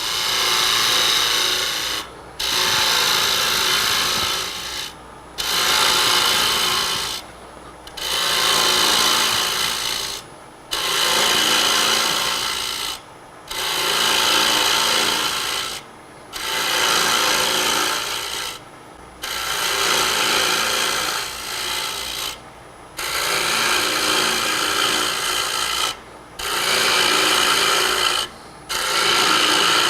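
Turning tool cutting into a spinning hard maple knob on a wood lathe, wasting away the excess tenon. The scraping cut comes in repeated passes of two to three seconds each, with short breaks between them.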